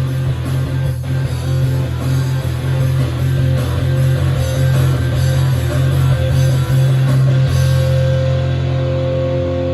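Rock music with electric guitars and drums playing an instrumental passage. About seven and a half seconds in, the full band drops away and a held guitar chord rings on.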